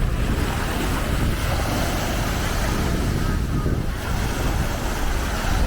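Surf washing onto a sandy beach, with wind buffeting the microphone as a steady low rumble.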